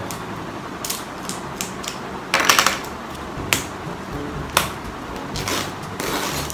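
A knife cutting and working open packaging: irregular sharp clicks and short scratchy scrapes, the loudest about two and a half seconds in.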